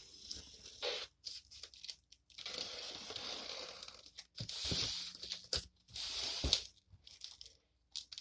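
Packing tape tearing and cardboard rustling as a shipping box is opened, in several ripping bursts with a few sharp clicks.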